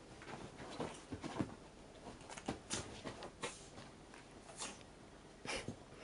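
American shorthair cat pouncing and scrambling on a duvet after a cat-teaser toy: irregular soft thumps and fabric rustles in quick succession.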